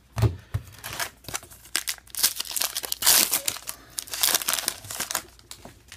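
Foil trading-card pack wrapper being handled and torn open: a run of crinkling and tearing, densest and loudest from about two seconds in until just before the end.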